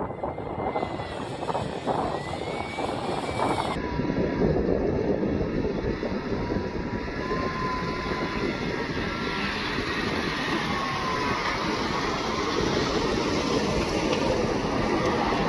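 Off-road vehicles crawling slowly up sandstone slickrock: the 2012 Jeep Wrangler Rubicon's V6 and a Nissan Xterra running at low speed, with steady engine and tyre noise and a faint wavering whine. The sound changes abruptly about four seconds in.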